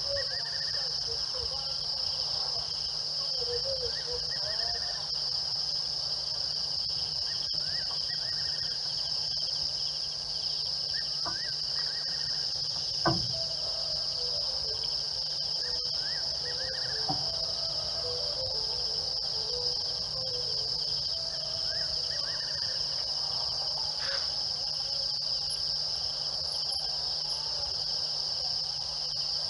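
Steady high-pitched night chorus of crickets and other insects, with faint warbling calls underneath and a single sharp knock about halfway through.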